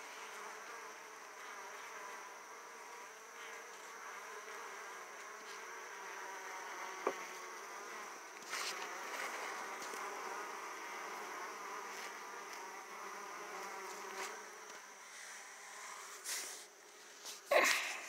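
Italian honey bees buzzing at a hive entrance: a steady, wavering hum of many bees flying close by. A sharp click about seven seconds in and loud rustling knocks near the end.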